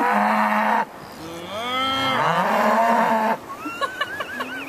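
Cows mooing: a long moo ends about a second in, and another, about two seconds long, rises in pitch and then holds. Fainter, shorter calls follow near the end.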